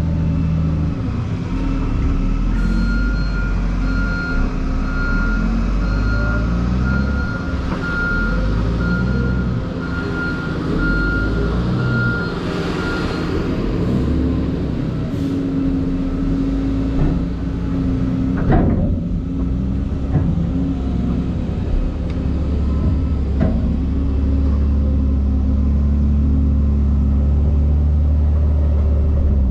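Heavy diesel construction machinery running, with a backup alarm beeping about once a second for roughly ten seconds in the first half. A brief sharp sound stands out about two-thirds of the way through.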